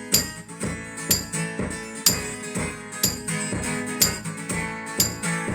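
Guitar strummed in a steady rhythm, with a strong accented stroke about once a second and lighter strokes between, as an instrumental passage of a song with no singing.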